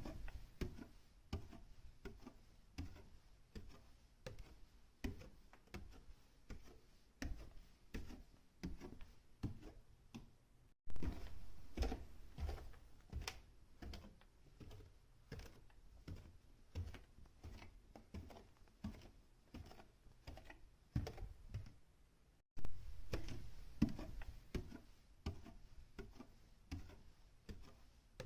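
Footsteps on a staircase: a steady run of separate treads. The sound cuts off abruptly twice, each time followed straight away by a new run of steps.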